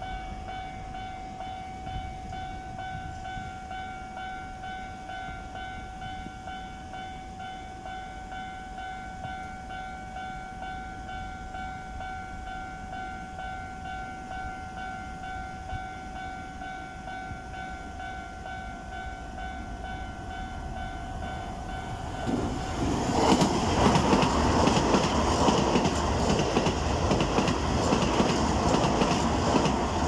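Level-crossing alarm ringing steadily in a high, two-toned electronic note. About 22 seconds in, a Toei 5500 series electric train comes through the crossing with a loud rush of wheels on rails that drowns the alarm.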